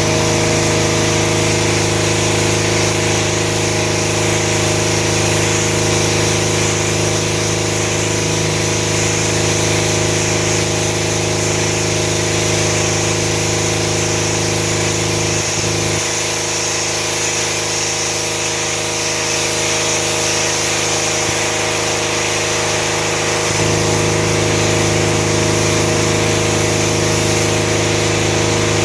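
Pressure washer running steadily: engine-driven pump humming under the constant hiss of the high-pressure water spray. The low hum thins for several seconds past the middle, then comes back.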